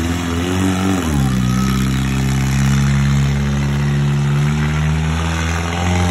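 Monster truck engine revving: it climbs in pitch, drops back sharply about a second in, then runs steady and loud, edging up again near the end.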